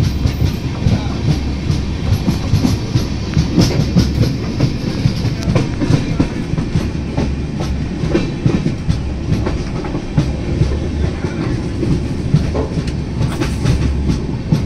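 A passenger train running, heard from on board: a steady low rumble with the wheels clacking irregularly over the rail joints.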